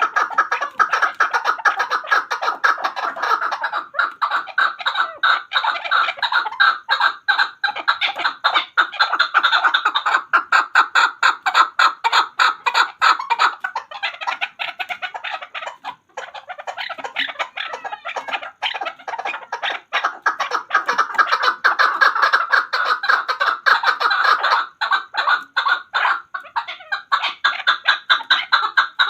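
Chukar partridge calling: a fast, continuous chatter of repeated chuck notes, easing briefly about halfway through.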